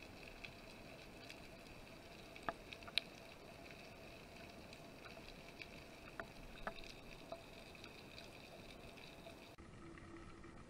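Faint underwater ambience on the camera's own sound: a steady hiss with a few sharp clicks, the loudest about three seconds in. The background hiss changes abruptly near the end.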